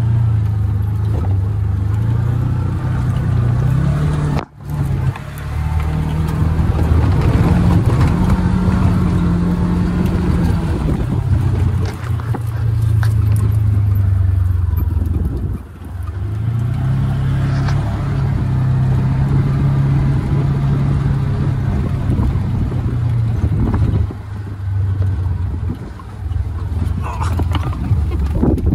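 Side-by-side utility vehicle's engine running as it drives slowly across rough ground, its pitch rising and falling with the throttle.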